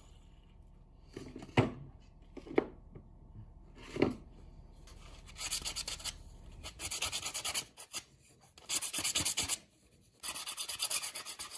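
A few sharp wooden knocks, then a sanding pad rubbed by hand over a wooden buoy blank in quick back-and-forth strokes, in bursts with short pauses between them.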